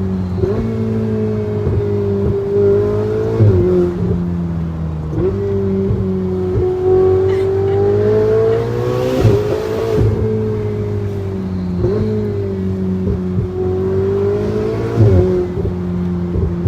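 V8 car engine running as the car is driven, its note rising and falling gently with road speed. A few short jolts interrupt it, where the pitch drops and picks up again.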